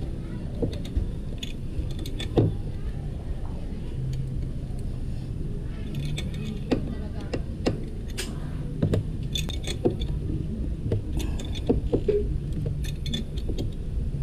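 Metal clinks and rattles of a spark plug socket and extension being worked on a Honda ADV150 scooter's spark plug: irregular small clicks scattered throughout, over a low steady hum.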